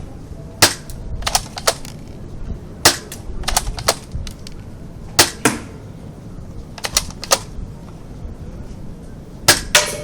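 M47A series airsoft gun being test-fired: about a dozen sharp single cracks, irregularly spaced and often in quick pairs.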